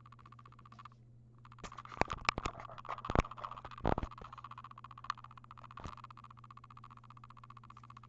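Rapid, steady electronic clicking in the camera's own audio, a recording fault that the owner ties to the camera's angle. It cuts out briefly about a second in. Several loud knocks and handling sounds come about two to four seconds in.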